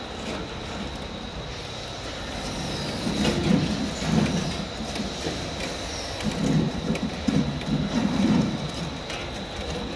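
Conveyor-belt fryer running: an even hiss of oil frying the rice cakes, a thin steady high whine from the machine, and irregular low rumbles from the belt drive.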